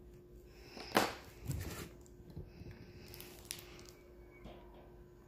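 Handling sounds of diamond painting: a sharp plastic click about a second in, a brief rustle just after, and another click about three and a half seconds in, as the drill tray and drill pen are picked up and moved over the canvas. A faint steady hum runs underneath.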